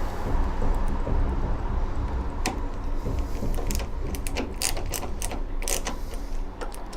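Screwdriver driving the small brass screws into a mortice lock's faceplate: a run of quick, irregular mechanical clicks that starts about two and a half seconds in.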